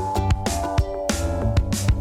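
Background music with a steady beat and plucked or struck melody notes.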